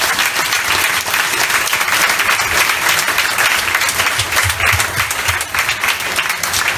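A roomful of people applauding steadily, a dense patter of many hands clapping.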